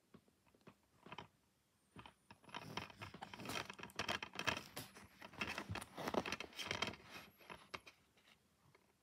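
Plastic DVD case being handled: a few scattered clicks, then from about two and a half seconds in a dense run of plastic clicking, creaking and scraping that dies away near the end.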